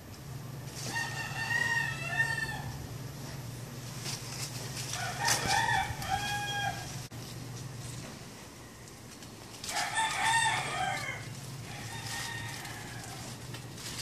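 Rooster crowing three times, each crow a pitched call of about two seconds, beginning about a second in, about five seconds in and about ten seconds in. A steady low hum runs underneath.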